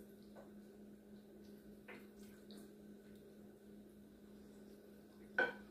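Quiet eating and drinking: gulps from a plastic water bottle and a few soft utensil clicks over a steady low hum, with one sharper click near the end.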